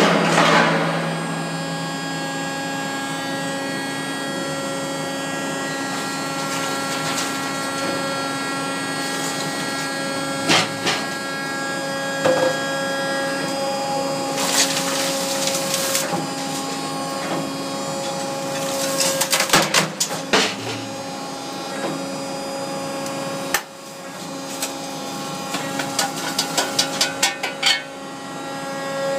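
Hydraulic catalytic converter shear running with a steady motor and pump hum while its blade cuts converters, giving sharp cracks and crunches of the steel shell and ceramic core at several points, a cluster about two-thirds through and a fast run of clicks near the end.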